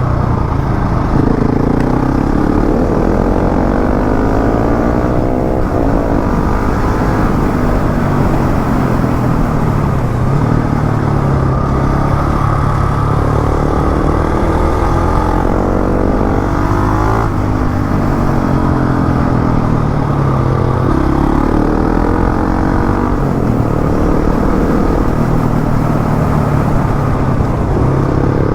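KTM motorcycle engine running hard: its pitch climbs for several seconds, drops back and climbs again, over and over, as when accelerating up through the gears.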